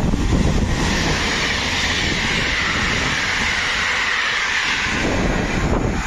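Electric locomotive-hauled intercity passenger train passing through the station at speed: a steady rush of wheels and carriages, with a high hiss that fades near the end as the train goes by.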